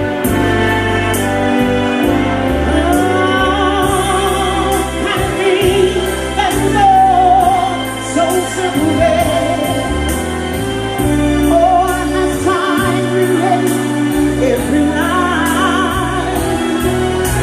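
Live soul ballad: a singer holds long, ornamented notes with heavy vibrato over a band or backing track, with bass notes and a steady cymbal tick.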